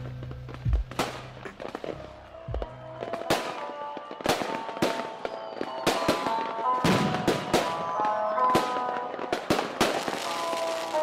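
Fireworks going off in an irregular string of sharp bangs and crackles, each with a short echoing tail, layered into lo-fi music. A low bass line fades out within the first two seconds, and a soft melody builds up from about four seconds in.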